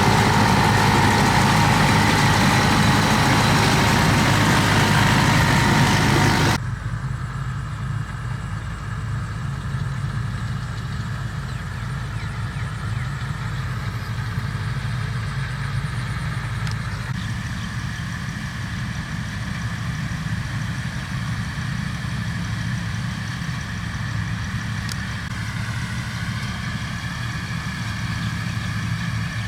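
Rice combine harvester's engine running steadily. About six seconds in, the sound drops abruptly from a loud, noisy run to a quieter, lower engine note, which shifts slightly in pitch near the end.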